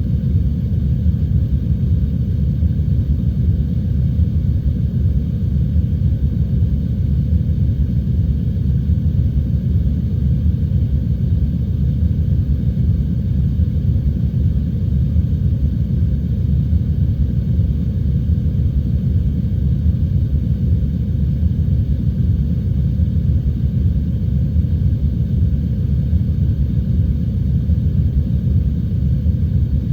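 Heavy rain and wind as a steady, deep rumble with little hiss, unchanging throughout.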